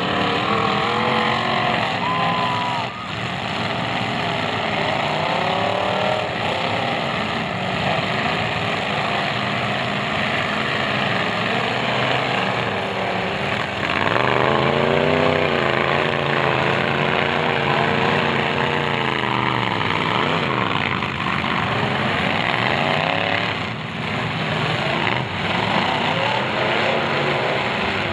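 Several demolition derby cars' engines revving hard at once, their pitches rising and falling against each other as the cars drive and ram.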